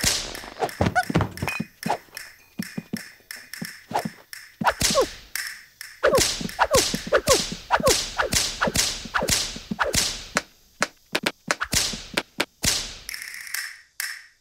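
Cartoon slapstick sound effects: a rapid, irregular string of sharp whacks and thunks, many with a quick downward slide in pitch, with a few short pauses.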